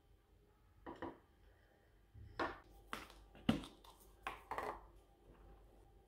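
Tableware handled on a table: about six light knocks and clinks of dishes, the loudest about three and a half seconds in.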